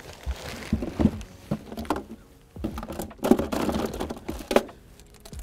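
Plastic packaging crinkling and rustling, with irregular light knocks and clicks of hard plastic parts being handled.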